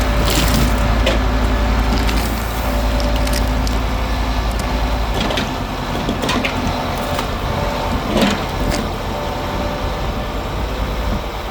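Grab lorry's engine running steadily while its grab crushes tree wood, with several sharp cracks and snaps of splintering wood, the loudest a little after the middle.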